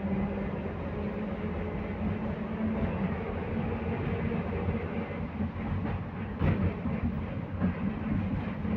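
Belkommunmash BKM 60102 tram running between stops, heard from inside the car: a steady rumble of wheels on the rails under a constant hum. A few sharp clacks from the track come about six to seven and a half seconds in.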